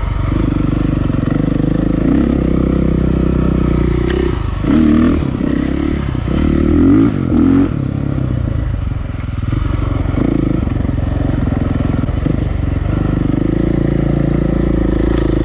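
KTM EXC four-stroke enduro dirt bike running on trail, held at a steady engine speed with two louder bursts of throttle a little past the middle.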